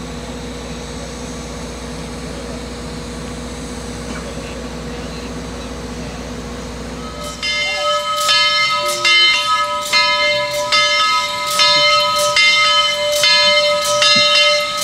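Steady low hum for about the first half. Then a steam locomotive's bell begins ringing, struck about one and a half times a second, as the locomotive approaches.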